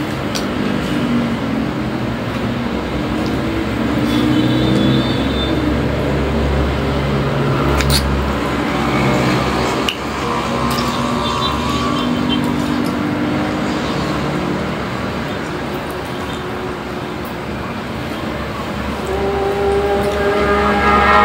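Motor vehicle engines running, a steady hum of traffic with engine notes gliding up and down. It grows louder near the end as one engine revs up.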